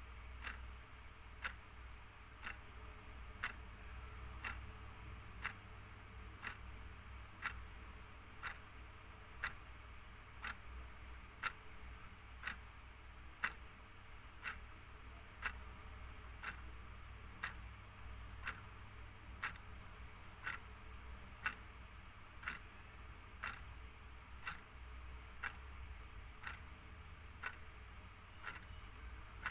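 Clock ticking steadily, about one tick a second, every other tick louder in a tick-tock pattern, over a faint low hum.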